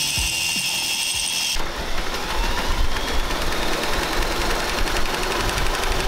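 Ryobi cordless angle grinder whining at a high, steady pitch as it grinds metal, cut off about a second and a half in. Then a Ryobi cordless drill spins up, rising in pitch, and runs steadily, driving a bike wheel through a gear with a rough mechanical whirr.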